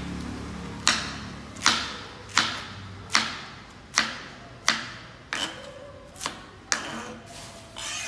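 Chef's knife shredding cabbage on a plastic cutting board: sharp chops of the blade against the board, a little more than one a second. Near the end, the blade scrapes flat across the board.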